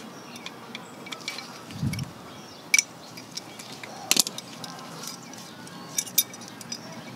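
Light metallic clicks and clinks from the spring and adjuster lever of a 2008 Toyota Yaris rear drum brake shoe as they are worked off the old shoe by hand. There are sharp clicks about three, four and six seconds in, and a soft thump near two seconds in.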